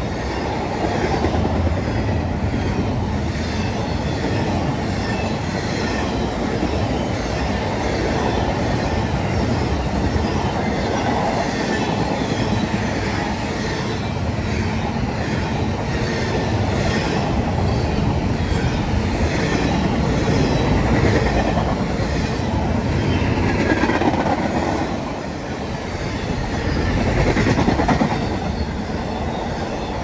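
Intermodal freight train's container well cars rolling past: a steady rumble and clatter of steel wheels on the rails, with a brief lull about 25 seconds in before it swells again.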